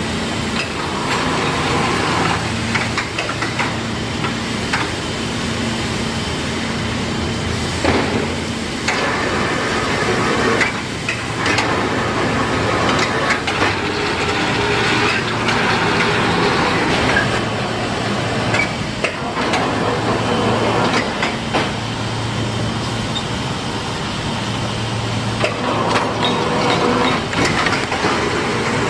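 Automatic stacker for flat corrugated boxes running with a steady machine din. A motor hum switches on and off every second or two as the stack is lifted and lowered, with scattered knocks of board and metal.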